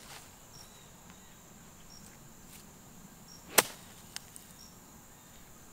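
A single sharp click of a golf club striking the ball on a full swing, about three and a half seconds in. Behind it there are faint, repeated high insect chirps.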